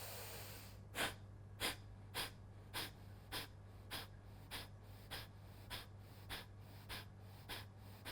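Kapalbhati pranayama breathing: a long breath in through the nose, then a steady run of short, forceful exhalations through the nose, a little under two a second.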